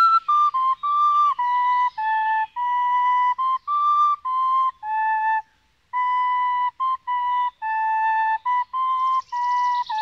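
A slow melody on a flute-like instrument: clear, steady notes, each held for less than a second, with short breaks between them.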